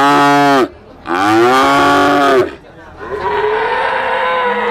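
Young cattle mooing: a long loud moo that ends well under a second in, a second long loud moo that ends about halfway, then a quieter, drawn-out call near the end.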